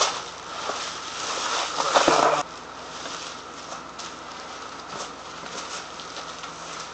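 Packing material rustling and crinkling as parts are unpacked, with small clicks and knocks. About two and a half seconds in it drops off suddenly to quieter, scattered handling noises.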